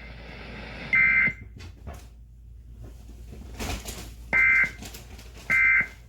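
Emergency Alert System end-of-message data bursts: short, harsh two-tone digital chirps, one about a second in and two more about a second apart near the end, marking the close of the alert test.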